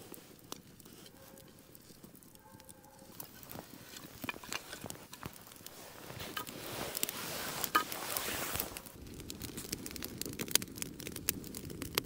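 Wood campfire crackling, with sharp pops and snaps that come thicker after the first few seconds.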